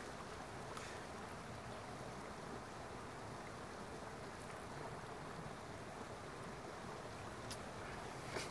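Steady faint background hiss of outdoor ambience, with a few faint ticks.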